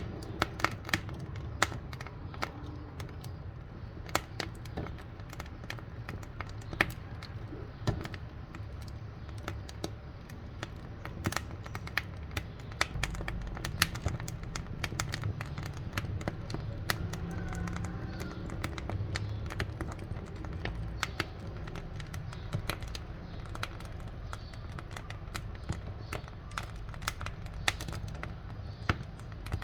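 Wood fire burning in a wood-fired cooking stove: a steady low rumble of flame with irregular sharp crackles and pops from the burning wood.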